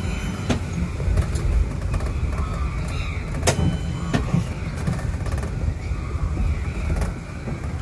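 Open-sided passenger cart driving along a paved road: a steady low rumble of the ride with several sharp knocks and rattles from the cart's body.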